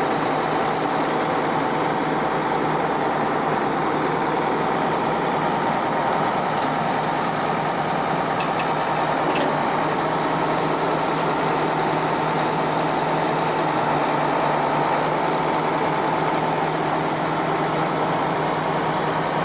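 A vehicle engine running steadily up close, a constant drone with no change in speed.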